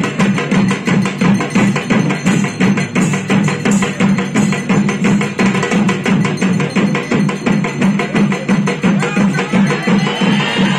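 Ritual drumming: a fast, steady drumbeat played on hand drums, loud and continuous.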